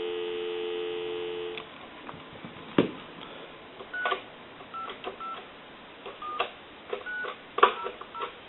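Telephone dial tone, two steady tones held together, cutting off about a second and a half in. The Conair desk phone's touch-tone keypad is then pressed about a dozen times, each press a short DTMF beep with a key click, dialing a number out on the line.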